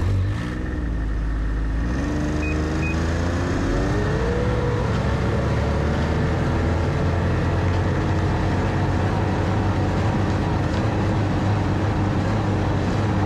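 Snowmobile engine pulling away and speeding up, its pitch climbing over the first four or five seconds. It then runs steadily at cruising speed over the packed trail.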